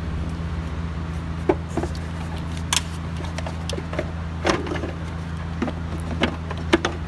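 Scattered clicks and light knocks of the air intake hose, its clamp and small rubber hoses being handled and fitted back onto a Toyota Yaris throttle body, over a steady low hum.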